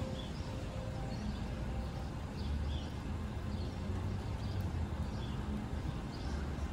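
Outdoor street ambience: a steady low rumble of the open air, with a small bird chirping over and over, about twice a second.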